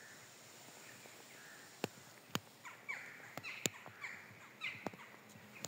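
Footsteps through dry fallen leaves and sticks, with several sharp snaps of twigs underfoot, and a few short bird calls in the middle.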